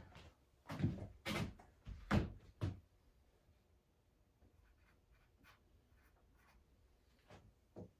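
A handful of light knocks and clunks as hard objects are handled and set down on a wooden workbench, followed by a few faint small clicks.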